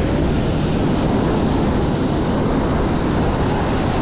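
Steady wind noise on the microphone over the rush of breaking surf.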